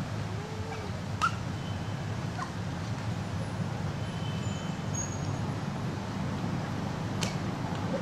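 Baby macaque giving a brief high squeak about a second in, with fainter squeaks after it, over a steady low background rumble. A short sharp click sounds near the end.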